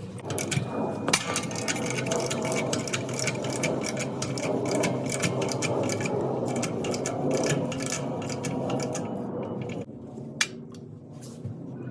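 Rapid metallic clicking from hand tools at work on the rear wheel hub, thinning out to a few separate clicks near the end.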